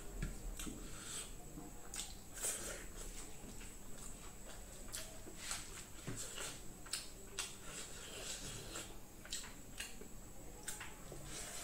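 Close-up eating sounds: wet chewing and lip-smacking, with fingers squishing rice on a steel plate, as quick irregular smacks and clicks.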